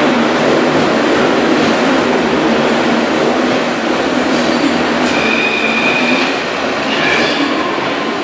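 Paris Métro line 5 MF 01 train pulling out of the station: steel wheels running on the rails with a continuous rumble, and a high squeal that comes and goes twice in the second half as the last cars pass.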